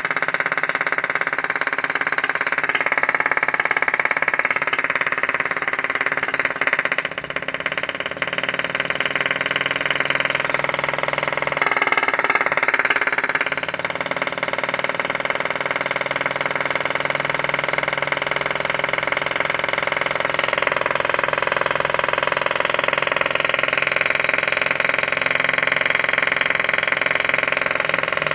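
Small flame-eater (vacuum) model engine running steadily, with a fast, even mechanical ticking. It dips slightly in level about a quarter of the way in.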